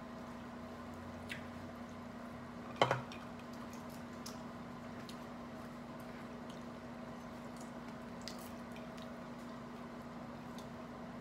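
Boiled seafood shells being peeled and cracked by hand: scattered small clicks and squishes, with one sharp crack about three seconds in, over a steady low room hum.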